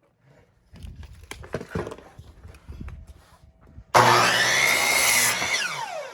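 A few knocks as a piece of lumber is handled and set in place, then about four seconds in a power saw starts suddenly and loudly, cuts through the wood, and its motor winds down with a falling pitch near the end.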